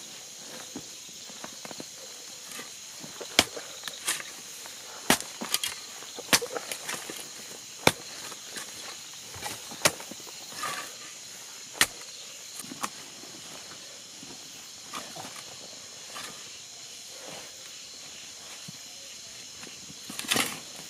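Scattered sharp knocks and scrapes of digging, irregular, one every second or two, with a louder cluster near the end, over a steady high-pitched chorus of night insects.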